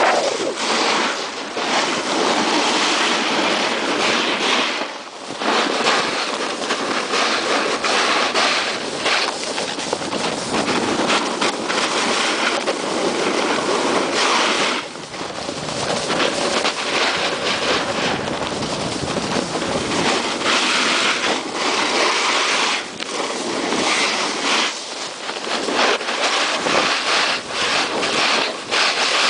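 Snowboard sliding and carving over groomed snow: a continuous scraping hiss that swells and fades with the turns, briefly dropping away a few times.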